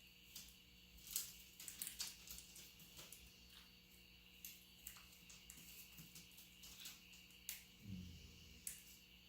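Quiet room with a faint steady hum and scattered light clicks and ticks. About eight seconds in there is a single low, soft snore-like breath from a dog settling to sleep.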